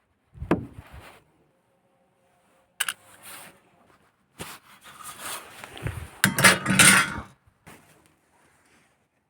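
Knocks and clatter of refrigerator parts being pulled apart for scrap: a sharp knock about half a second in, another near three seconds, then a longer rattling, scraping stretch from about four and a half to seven seconds, the loudest part, and a last click near the end.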